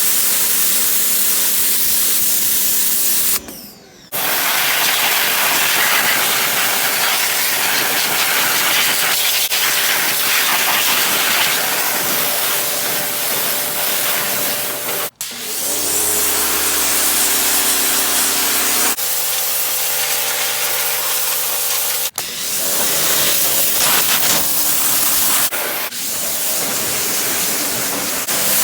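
Sun Joe 13-amp electric pressure washer running and spraying a high-pressure water jet: a loud, steady hiss with the motor's hum underneath. It breaks off briefly a few times, once for about half a second near the start.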